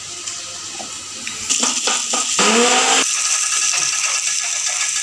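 Turmeric-coated potato wedges sizzling in hot oil in a kadai, a steady hiss that starts loud about a second and a half in. The potatoes are nearly done frying.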